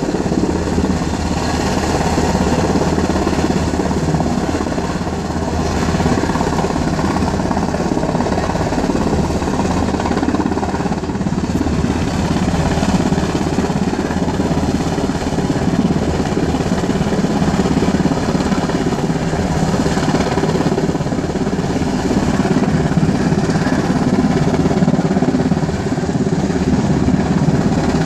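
UH-60 Black Hawk helicopter flying past at low altitude: steady, loud rotor and twin-turbine noise with a deep, even hum underneath.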